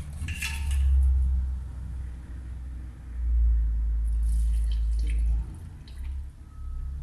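Kerosene being poured from a plastic bottle through a funnel spout into an open spark plug hole, a light trickling with plastic handling. Under it runs a deep low rumble that swells twice, the second time from about three seconds in to about five and a half.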